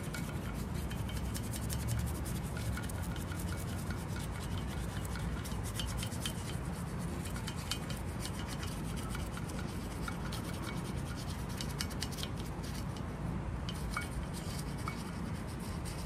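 Toothbrush scrubbing soap and grime out of the crevices of an aluminum mesh alloy wheel: rapid scratchy strokes of bristles on metal.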